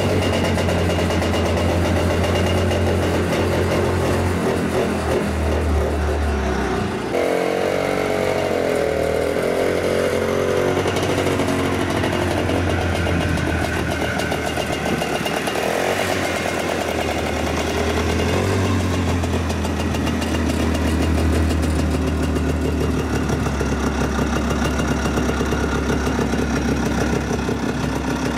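Starcraft 6x6 ATV's small engine running as it is driven, a steady low drone. About seven seconds in the sound changes suddenly and the engine pitch rises and falls for a few seconds before settling back to a steady run.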